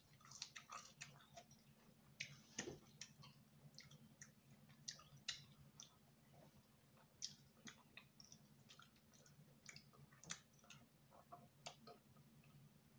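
Faint, close-up chewing and wet mouth clicks of a person eating soft fufu and soup, irregular little clicks over a faint steady low hum.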